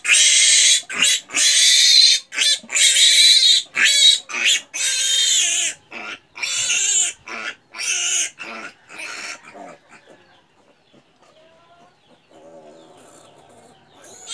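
Piglet squealing in loud, high, repeated screams while held down for castration and injection, the distress call of a restrained piglet. The squeals stop about ten seconds in, leaving only faint sounds.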